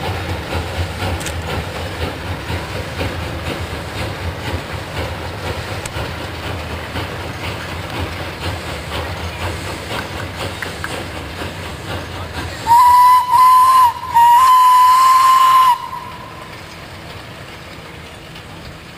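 Small Orenstein & Koppel 0-8-0T narrow-gauge steam locomotive working a train, its exhaust beat and running noise steady and slowly fading as it moves away. About two-thirds of the way through its steam whistle sounds three blasts on one clear note, the last the longest.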